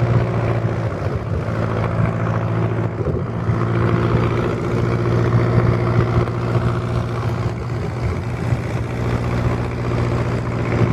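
A running engine droning steadily at an even pitch.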